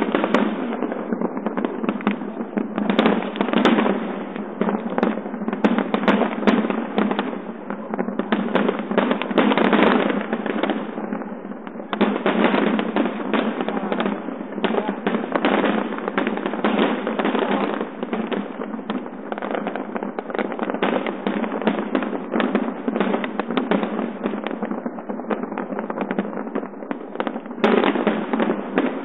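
Large fireworks display heard through a phone's microphone: a dense, continuous barrage of shell bursts and crackling, many bangs a second, swelling and easing in waves.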